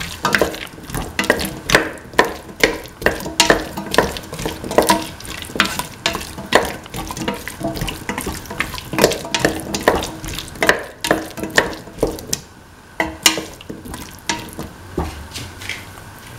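A spatula scraping and knocking against a metal pan at about two strokes a second as chopped ash gourd, tomato and shallots are stirred, over a light sizzle of frying. The strokes thin out with a short pause in the last few seconds.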